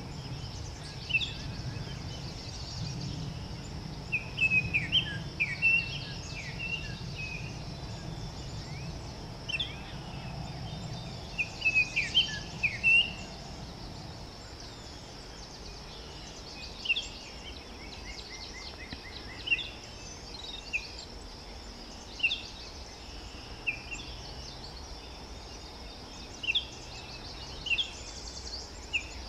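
Forest bird ambience: scattered short chirps and calls of small birds over a steady background hiss, with clusters of calls a few seconds in and again near the middle, then sparser calls.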